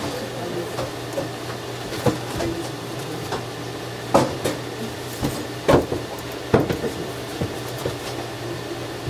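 Scattered short knocks and thumps, about six at irregular intervals, the loudest between four and seven seconds in, over a steady low hum.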